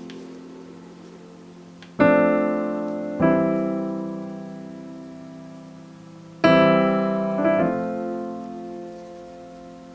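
Background piano music: slow chords, each struck and left to fade, about two seconds in, again a second later, and twice more past the middle.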